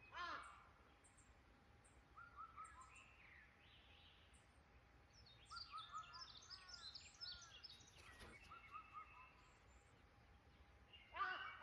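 Several birds calling faintly in woodland: a harsh call with stacked tones right at the start and again near the end, soft repeated chirps early on, and a quick cluster of high twittering notes in the middle.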